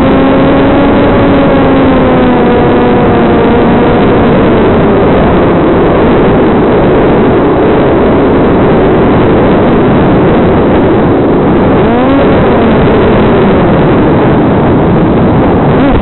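Electric motor and propeller of a TBS Caipirinha II flying wing in flight, under loud, steady wind rush. The motor whine eases down and fades out a few seconds in as the throttle is cut back to glide, then rises briefly about twelve seconds in and falls again.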